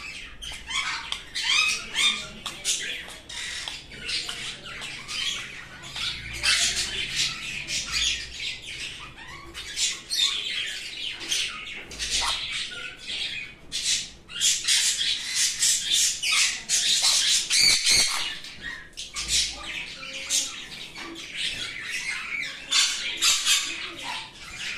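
Sun conure squawking in rapid, repeated harsh calls, running almost without pause for a few seconds past the middle.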